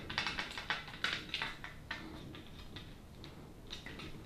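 Small screwdriver driving a screw into a 3D-printed plastic spoiler: a quick, uneven run of light clicks and scrapes, sparser toward the end.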